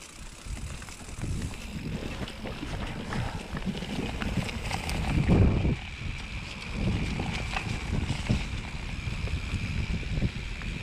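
Wind buffeting the microphone, with irregular low rumbling and knocks, loudest about five seconds in, and a faint steady high whine from about four seconds on.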